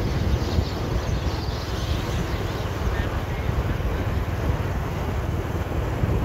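Steady wind rumble on the microphone of a camera carried on a moving vehicle, with the vehicle's running noise underneath.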